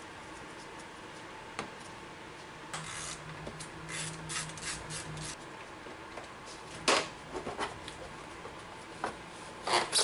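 Handling noises: rubbing and scraping with scattered clicks, and a couple of sharper knocks about seven seconds in and near the end.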